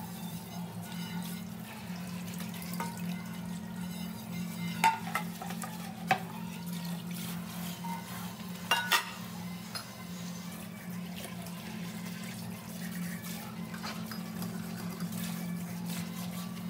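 Water running from a pull-down kitchen tap into a stainless steel sink while dishes are washed by hand, with a few sharp clinks of dishes near the middle.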